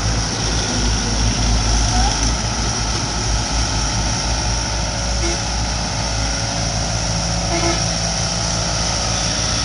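Sumitomo S160AJ hydraulic crawler excavator's diesel engine running steadily with a low rumble as the machine works its tracks on a flatbed truck's loading ramp and swings its boom.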